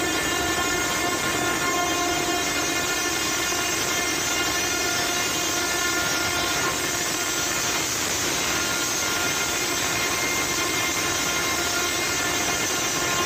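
Cruise ship's horn sounding one long unbroken blast over a steady rushing noise, a warning as the ship bears down on the quay out of control.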